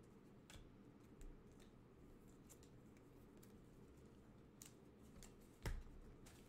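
Near silence with a few faint, scattered clicks of trading cards being handled and flipped, and one louder click with a soft thump near the end.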